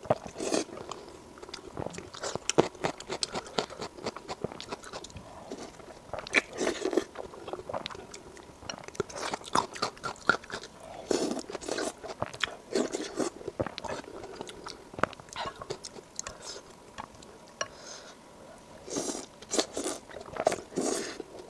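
A person chewing and biting food close to the microphone: irregular crunching, wet smacking and mouth clicks, in louder clusters as fresh bites are taken.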